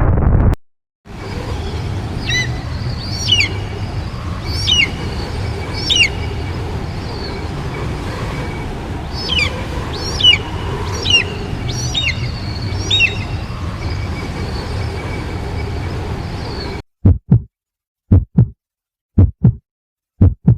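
A loud rumble cuts off, then a steady low rumble with a dozen or so high, sweeping chirps. Near the end, silence broken by paired thumps like a heartbeat.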